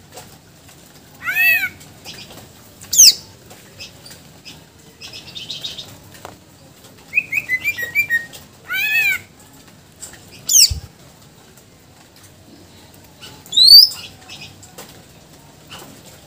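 Caged male green leafbird (cucak ijo) singing in loud, separate phrases a few seconds apart: arched whistles, sharp down-slurred whistles, a short buzzy trill and a quick run of about six chips. This is its varied repertoire of mimicked phrases (isian). A soft thump comes partway through.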